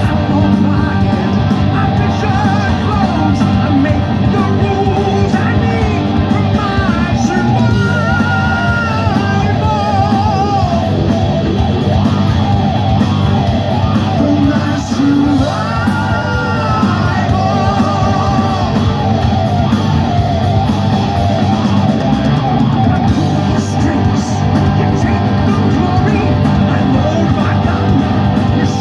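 Hard rock band playing live, heard from the crowd: a lead singer over electric guitars, bass, drums and keyboards, loud and continuous.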